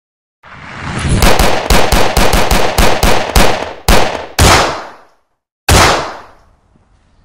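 Dubbed-in gunfire sound effects: a rapid burst of shots, about four a second for a few seconds, then two heavier shots and, after a pause of over a second, a last shot that fades out.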